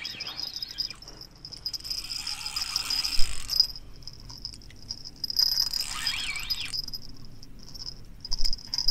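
Crickets chirring steadily in a high, continuous trill. Two louder spells of rustling noise come about two and five seconds in.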